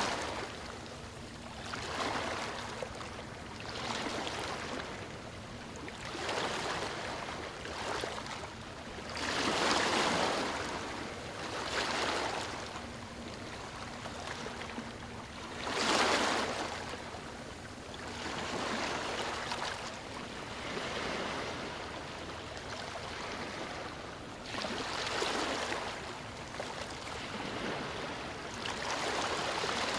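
Ocean waves washing onto a shore, each wave swelling and fading every two to four seconds, with a faint steady low hum underneath.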